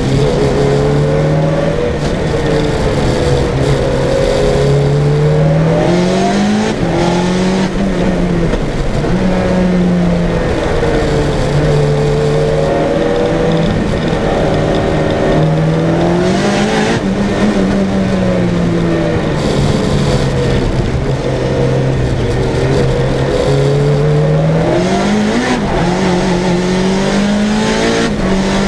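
Tuned, roughly 500 hp Lancia Delta Integrale 16v's turbocharged four-cylinder engine at full effort on track, heard onboard: the revs climb hard several times and drop back sharply between pulls, with longer lower stretches in between.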